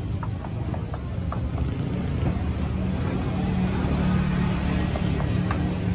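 Steady low rumble of a motor vehicle's engine, swelling a little in the second half, with a few faint light ticks over it.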